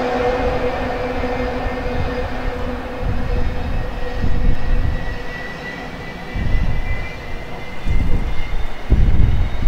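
McDonnell Douglas MD-82's rear-mounted Pratt & Whitney JT8D turbofans spooling up for takeoff, their whine slowly rising in pitch. Gusts of wind buffet the microphone.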